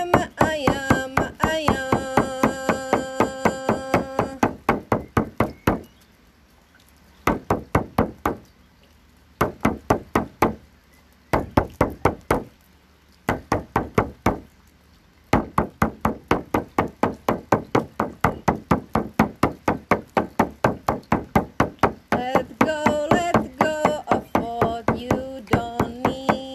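Shamanic frame drum beaten steadily, about three to four strokes a second, with a few short breaks in the middle. A woman's wordless chanting, on long held notes, sounds over the drum for the first few seconds and again near the end.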